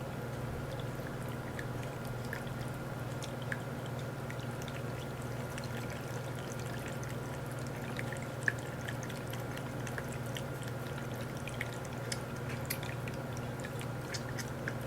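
PetAcc cat water fountain running: a steady trickle of falling water over the pump's low, even hum, with scattered faint ticks and one sharper tick about halfway through.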